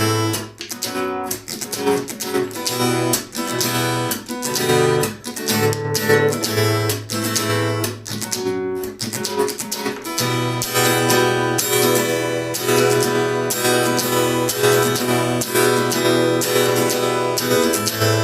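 Acoustic guitar strummed with the percussive 'knock' technique: chords punctuated by sharp slaps and taps on the strings and body. The playing gets denser and more continuous about ten seconds in.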